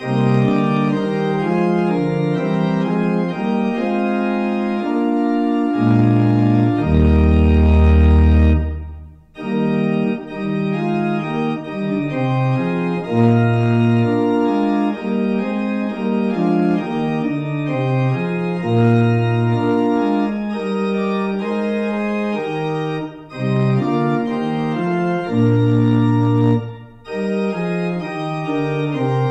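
Organ playing slow sustained chords over a moving bass line. A deep low pedal note is held for about two seconds around seven seconds in, and the music breaks off briefly about nine seconds in and again near the end.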